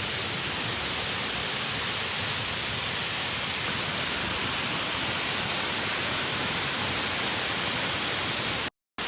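Steady rushing of a large, powerful waterfall carrying heavy rainy-season flow. The sound cuts out completely for a moment near the end.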